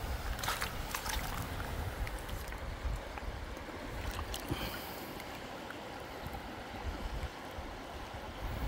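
River water flowing over stones, with wind rumbling on the microphone. A few clicks of stones underfoot near the start, and a small splash about four seconds in as a rock is lifted out of the shallow water.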